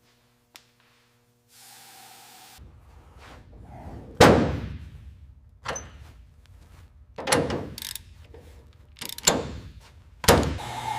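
A series of heavy knocks, five over about six seconds, each dying away with a short ring, over a low steady background noise.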